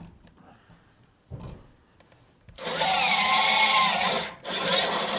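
Powered COPALUM crimping tool running twice as it crimps a connector joining a copper pigtail to an aluminum wire. The first run lasts about two seconds, with the pitch of the motor sliding as it works. After a brief pause a second, shorter run follows near the end.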